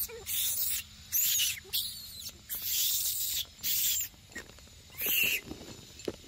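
Macaques screaming in a series of about six short, high-pitched calls, each under half a second, with the pitch bending up and down.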